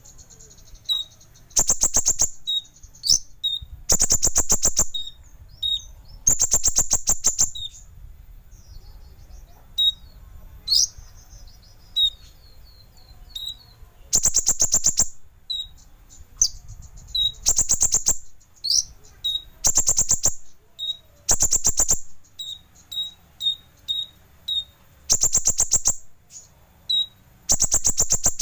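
Brown-throated sunbird (kolibri ninja) singing: about nine loud, rapid, high trills, each about a second long, spaced a few seconds apart, with short sharp single chirps in between.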